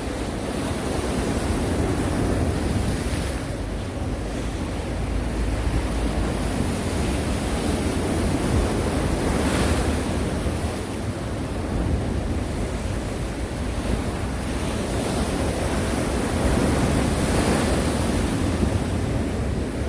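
Sea waves breaking and washing on the shore in a continuous rush. Louder surges come every several seconds, about three times.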